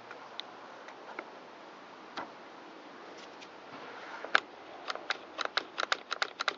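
Small sharp clicks and taps of hand tools and chainsaw parts being handled on a workbench: a few scattered at first, then a quick, uneven run of clicks from about four seconds in.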